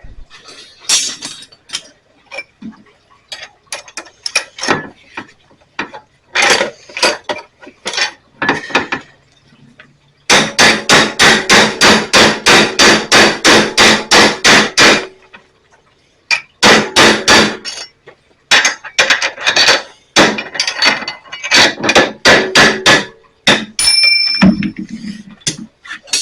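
Hammer blows on a steel punch, working open a loop in a steel fence rod. Scattered strikes, then a fast even run of about five blows a second for nearly five seconds, then more strikes and a brief metallic ring near the end.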